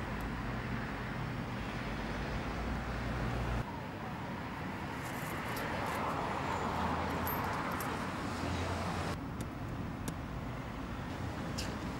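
Steady outdoor road traffic noise with a low rumble, changing abruptly twice, with a few short faint clicks in the second half.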